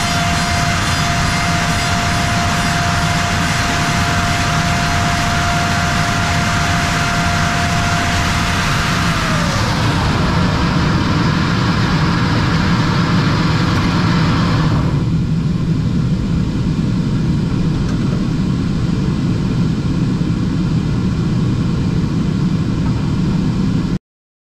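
Bacci T4MO CNC wood machining centre running inside its enclosure: a steady high whine over a loud machine hum. About ten seconds in, the whine falls in pitch as the spindle winds down. A few seconds later the hiss cuts out, leaving a low hum that stops suddenly near the end.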